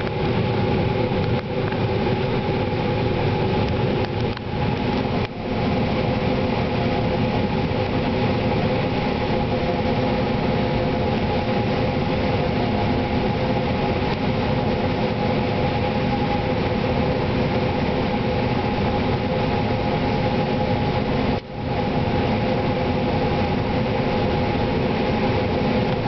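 John Deere 9500 combine running steadily while harvesting corn, heard from inside the cab: a constant, loud machine drone with several steady whining tones over a broad rush of threshing noise.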